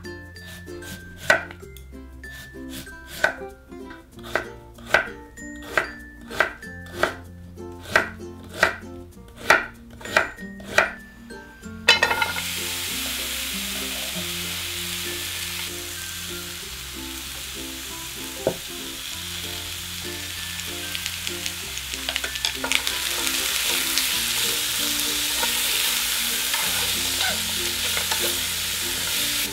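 Kitchen knife slicing through a Korean radish onto a wooden cutting board, a dozen or so separate strokes about a second apart. About twelve seconds in it gives way to radish matchsticks sizzling in a hot nonstick frying pan, a steady hiss that grows louder about two-thirds of the way through.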